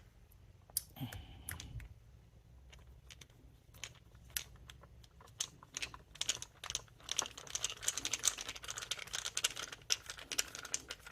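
Torx screwdriver and screws working into the plastic housing of a Dyson vacuum cleaner head: scattered light clicks, turning into a fast run of clicking from about six seconds in.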